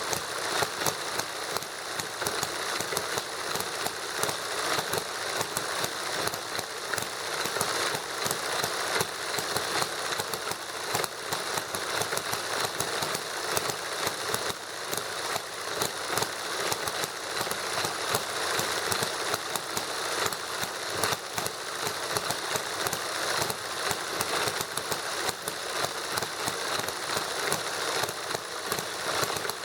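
Two small model engines running together, one a hit-and-miss gasoline model engine, making a steady, fast mechanical clatter.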